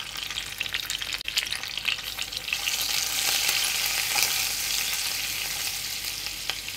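Grated garlic, curry leaves and hing sizzling and crackling in hot oil in a kadhai as a tadka, stirred with a silicone spatula. The sizzle swells about two and a half seconds in, and there is one sharp knock a little after a second in.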